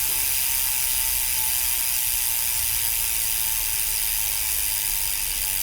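Rear freehub of a Twitter R10 bicycle freewheeling: the pawls ratchet in a steady, fast buzz of clicks.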